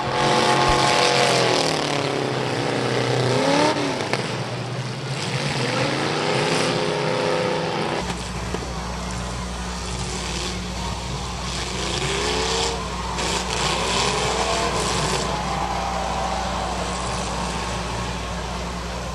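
Demolition derby cars' engines revving up and down over and over, several at once. A steady low hum joins about eight seconds in.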